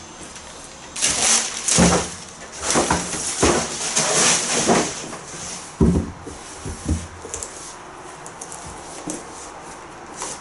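Wrapping paper and cloth dust bags rustling and crinkling as shoes are pulled out of their packaging, with a dull thump about six seconds in and a few light handling clicks after it.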